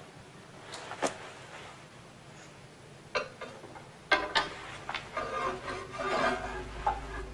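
Scraping and rubbing noises with a few sharp knocks, busier in the second half.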